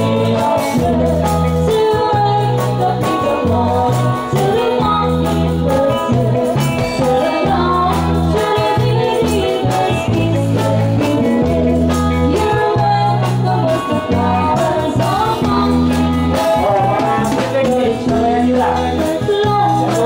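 Live band music: women singing into microphones over an electric bass guitar, drums and keyboard, with a steady pulsing bass line.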